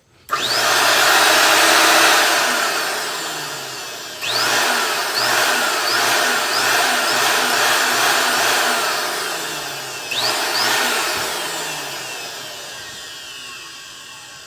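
Partly dismantled commercial vacuum cleaner's motor switched on, whining up to speed with a loud rush of air, then winding down. It is started again about four seconds in, with a few quick rising whines, and once more about ten seconds in, each time fading away afterwards.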